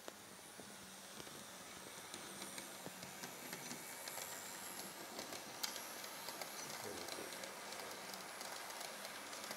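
Model train running along layout track: a yellow works train of a small diesel locomotive and wagons, with many small clicks from the wheels over the rails and a steady hum, growing louder as it comes nearer.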